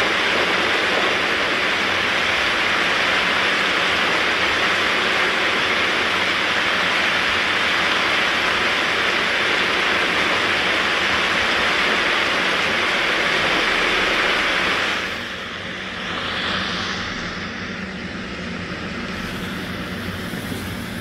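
Heavy rain pouring down in a steady hiss that suddenly drops to a softer patter about fifteen seconds in.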